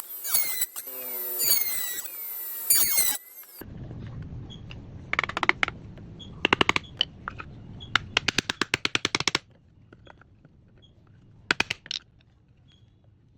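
A run of falling whistling sweeps, then four short bursts of rapid, evenly spaced mechanical clicking over a low hum, typical of a hand tool at work.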